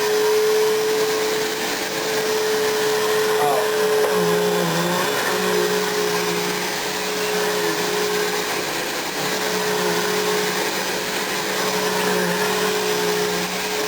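Bissell vacuum cleaner with a 12-amp motor running steadily with a whining hum, its pitch dipping slightly now and then.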